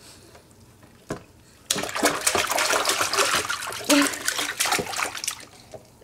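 Bath water splashing and pouring in a stainless-steel kitchen sink around a baby, starting about a second and a half in and fading near the end.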